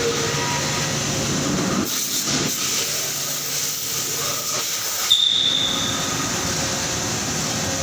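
Steady machinery noise of an engine-assembly factory floor, a hum with several steady tones and hiss, with a sharp knock about five seconds in and a short high beep or squeal just after it.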